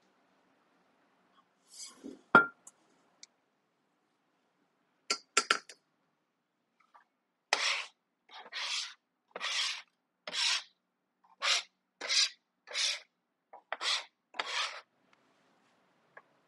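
Metal bench scraper scraping across a wooden board in about a dozen short, even strokes, gathering crumbly pie dough. Before that, a sharp metallic clink about two seconds in and a few quick light clicks.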